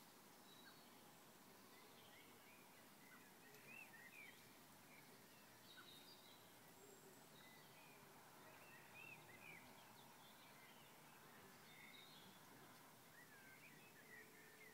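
Faint, scattered short chirps of birds calling at dusk over a steady outdoor background hiss.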